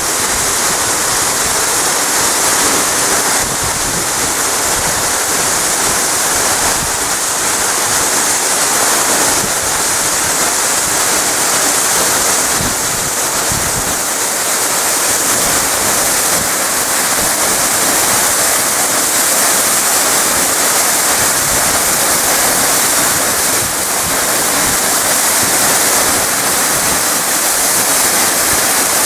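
Amida Falls, a tall waterfall, roaring steadily as its water plunges and crashes into the pool below, heard up close in the spray. The roar is loud and unbroken.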